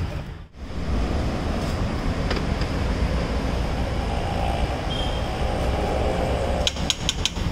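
Steady street traffic rumble, with a brief dip about half a second in and a few sharp clicks near the end.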